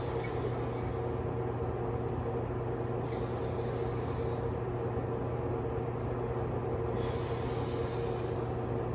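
Steady machine hum holding a few fixed tones, with two soft rushes of hiss about three and seven seconds in.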